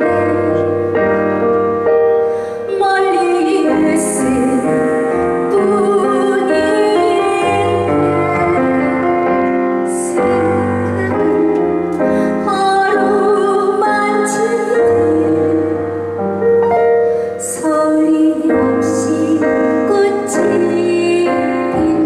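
A woman singing into a microphone over piano accompaniment, her held notes wavering with vibrato and sharp 's' sounds cutting through now and then.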